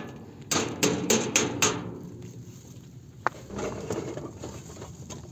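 A quick run of sharp knocks, about six of them, evenly spaced, then a single knock about three seconds in.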